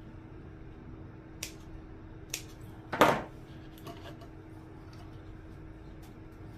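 Small hand-tool handling while thin speaker wire is trimmed shorter: two sharp clicks, a louder clunk about three seconds in, then a few faint ticks, over a faint steady hum.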